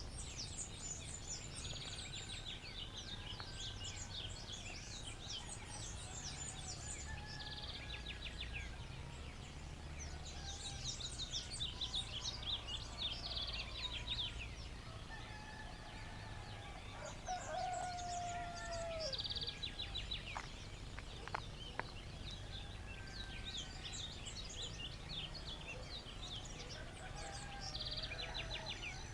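Dawn chorus of many birds chirping and trilling, with a rooster crowing in a longer, lower call that falls at its end about two-thirds of the way through, over a steady low rumble.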